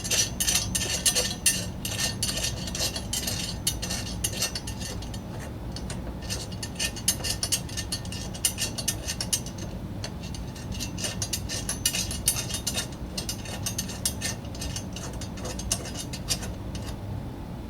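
Ratcheting socket wrench clicking rapidly in runs with short pauses, as the blade bolt is run down onto the mower's blade adapter.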